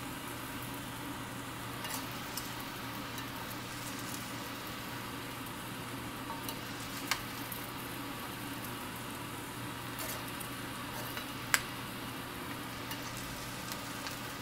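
Fried rice sizzling in a stainless steel pan as it is turned over with two metal spoons, with a few sharp clicks of the spoons against the pan.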